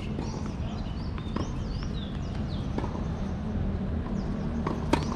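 Tennis ball bounced on a hard court a couple of times before a serve, then a sharp racket strike on the serve near the end, the loudest sound. Birds chirp repeatedly over a steady low rumble.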